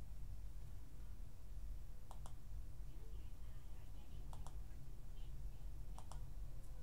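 Computer mouse clicks: three quick pairs of clicks about two seconds apart, over a steady low background hum.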